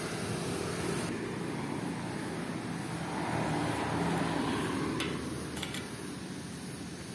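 Steady street traffic noise that swells for a while around the middle. A couple of light clicks about five seconds in, as sunglasses are set down on a metal table.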